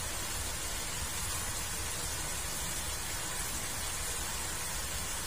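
Steady sizzling hiss from a two-burner gas stove, where bitter gourd in chili sauce is cooking down in a frying pan next to a pot of water at the boil.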